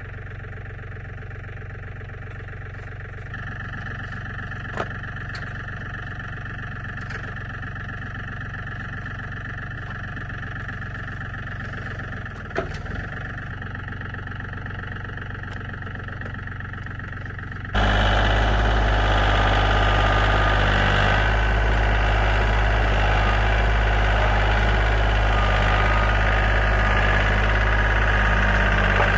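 An engine running steadily. It becomes much louder and fuller about two-thirds of the way through, with a couple of brief clicks before that.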